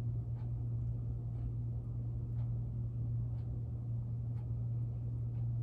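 Room tone: a steady low hum, with a faint tick about once a second.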